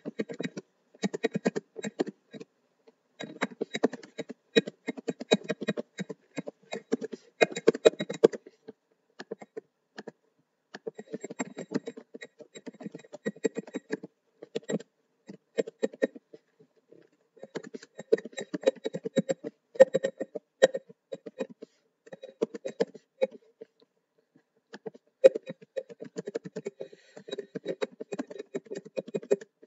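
Typing on a computer keyboard: quick runs of keystrokes, broken by pauses of a second or two.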